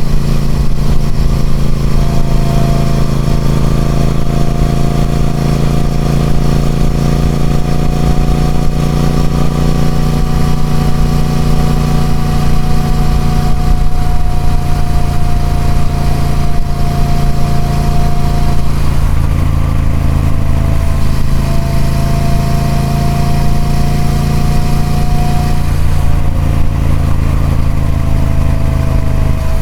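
Triumph Speed Twin 1200's parallel-twin engine running steadily through its stock exhaust, with a thin steady whine over the engine note. The engine note shifts slightly a few times.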